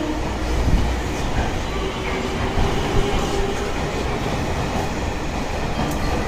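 Electric limited express train pulling out of the platform and passing close by: a steady low rumble of the cars and wheels on the rails, with a faint steady hum.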